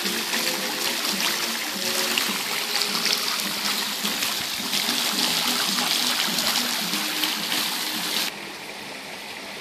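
Garden pond fountain jet spraying, its spray falling back into the pond as a steady dense hiss. It cuts off suddenly near the end.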